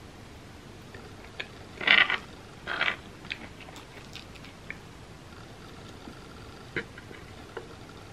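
Close-up eating sounds from a gooey cookie skillet dessert eaten by hand: chewing and wet mouth clicks, with two louder short wet smacks about two and three seconds in.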